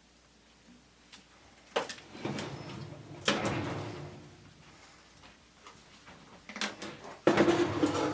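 Hard objects being handled: a few sharp knocks, about 2 and 3 seconds in and again near the end, each followed by a short stretch of rattling and scraping, like a drawer or tray being slid.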